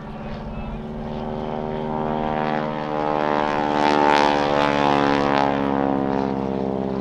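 Propeller-driven biplane flying past, its radial engine running with a steady, even drone that grows louder to a peak about four seconds in and then fades slightly as it passes.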